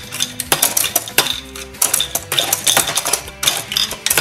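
Hard plastic toy parts clicking and clacking as a hand turns and handles the small wheel ride of a Littlest Pet Shop playset, in a run of irregular sharp knocks, with background music underneath.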